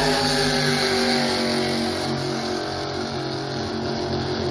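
Engines of two racing jet boats running at full throttle side by side. Their drone sags slightly in pitch and eases off a little after about two seconds as the boats pull away.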